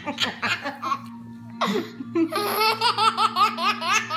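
A toddler laughing hard, belly laughter in rapid repeated ha-ha pulses; it eases off after about a second, a short noisy breath comes in, then the laughter starts up again.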